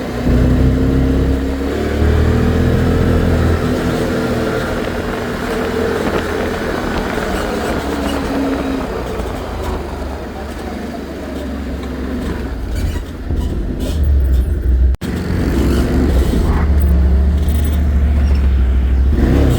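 ATV engines running, with a heavy low rumble and an engine pitch that rises and falls; the sound breaks off briefly about fifteen seconds in and picks up again.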